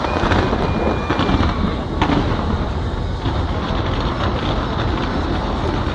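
Fireworks display: a dense, continuous barrage of rumbling booms and bangs, with a sharp crack about two seconds in.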